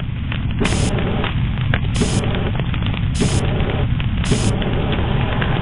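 Flamethrower sound effect: a loud, steady, deep rushing noise of fire.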